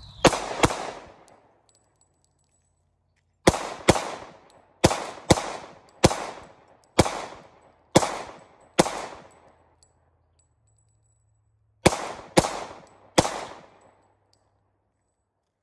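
Glock pistol fired, about thirteen shots in three groups: two quick shots, a pause, a string of eight at roughly one every half-second, another pause, then three more. Each shot trails off in an echo lasting about a second.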